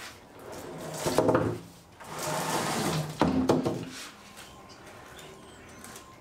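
A heavy wooden butcher block slab being handled: knocks about a second in, a scraping slide, then more knocks a little after three seconds, after which it goes quiet.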